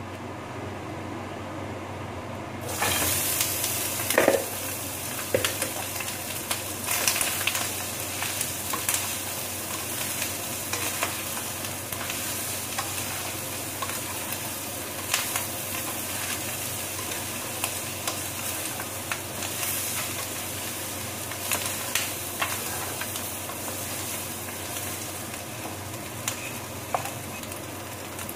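Sliced pork dropped into a hot oiled frying pan: a sizzle starts suddenly about two and a half seconds in and keeps going steadily. A wooden spatula stirs the meat, scraping and knocking against the pan.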